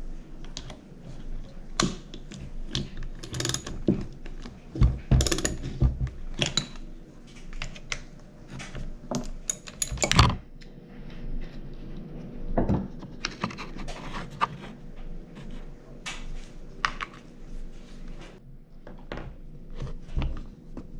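Irregular metallic clicks, clinks and knocks of hand tools and loose bolts as the magneto-side cover is unbolted from a Kawasaki KX65 two-stroke engine, with a few heavier knocks in the middle.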